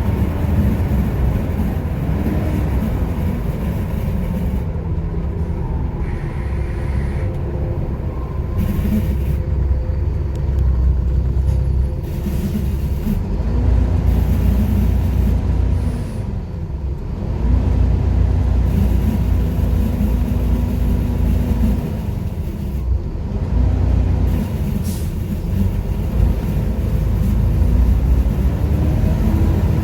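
Volvo B7TL double-decker bus's diesel engine working hard, its pitch climbing, holding and dropping again and again as the bus accelerates and shifts gear, with a steady high whine over it.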